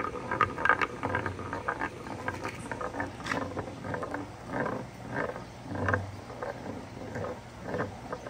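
A glass flower marble rolling around a carved wooden spiral bowl, a continuous rolling rumble that swells and fades about every two-thirds of a second as it circles toward the centre hole.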